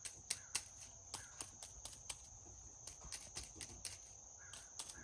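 A stick tapping and prodding dry leaf litter on the forest floor: sharp, dry ticks about four a second, unevenly spaced. The taps sound different over the footprint, where a human footfall has changed the sound of the litter.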